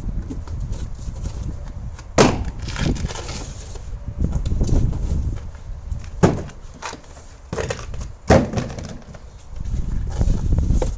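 Cardboard banana boxes being pulled out of a car's boot and set down, with three sharp knocks and scuffing and rustling of cardboard in between.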